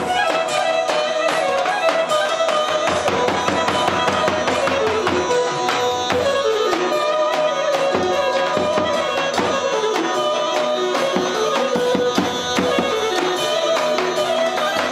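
Clarinet playing an ornamented Albanian folk dance tune (valle) over the steady beat of a lodra, a large double-headed drum struck with a stick.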